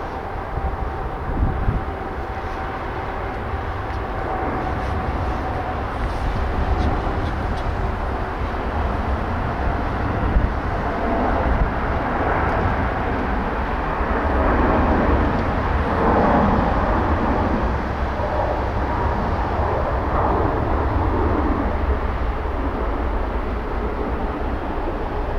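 Jet airliner taking off at full thrust, its engine noise building to a peak about halfway through and then easing off. Constant wind rumble on the microphone runs underneath.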